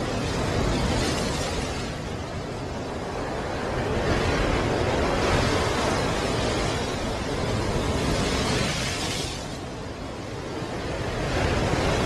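Ocean surf: waves breaking and crashing in heavy washes of noise that swell and ease, with a lull about ten seconds in before the next wave breaks near the end.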